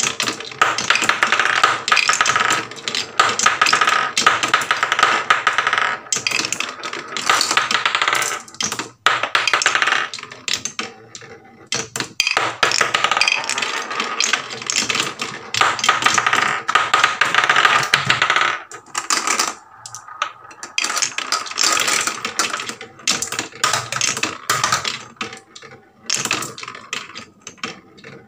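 Marbles rolling and clattering down HABA wooden marble-run slopes, rattling over the rows of wooden pegs in rapid, uneven clicks, with a few brief lulls.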